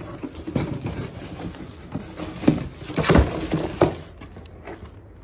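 A cardboard shipping box being handled and opened by hand: rustling with an irregular run of sharp knocks and scrapes, the loudest between about two and a half and four seconds in, then quieter.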